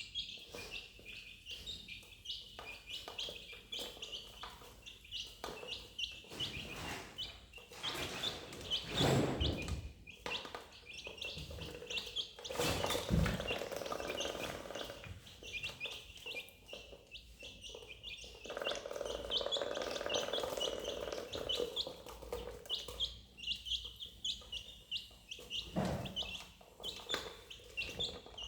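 Duckling peeping steadily: short, high chirps several times a second, with a few louder rustling, knocking noises in between.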